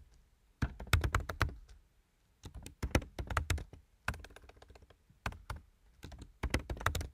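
Typing on a computer keyboard: rapid keystroke clicks in several short bursts with brief pauses between them.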